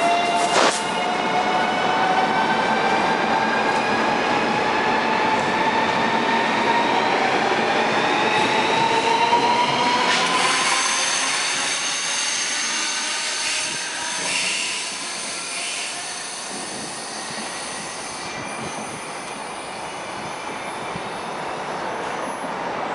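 Lastochka electric train (Siemens Desiro RUS) pulling away from the platform. Its traction motors whine in several tones that rise steadily in pitch as it accelerates past, and over the second half the sound fades as the train draws away.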